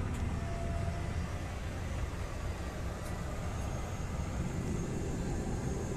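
Steady low drone of a small airplane's engine and propeller heard from inside the cabin while the plane taxis on the ground.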